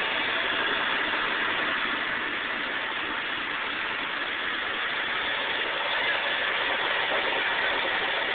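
Fire engine's motor running steadily, a continuous even drone with no breaks.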